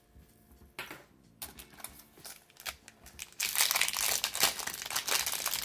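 Crinkling of a small plastic packet being handled and opened: a few light rustles at first, then loud, continuous crinkling from about three and a half seconds in.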